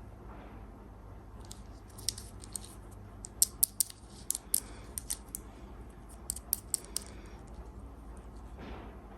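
Sweet wrappers being handled and opened by hand: a run of sharp crinkles and clicks from about two to seven seconds in, with a soft rustle near the start and near the end.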